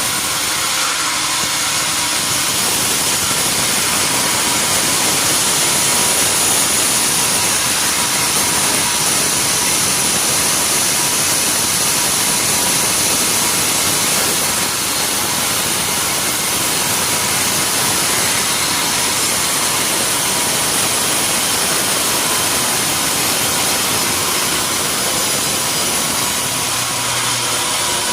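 Sawmill machinery running steadily: a loud, even noise with a thin high whine over it.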